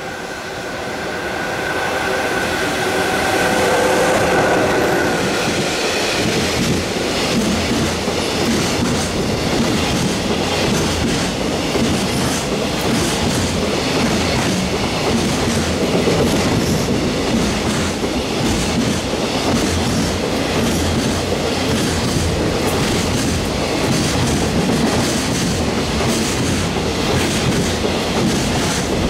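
EF66 electric locomotive hauling a freight train, growing louder as it draws near and passes about four seconds in, followed by a long string of container and tank wagons going by with a steady rumble and clickety-clack of wheels over the rail joints.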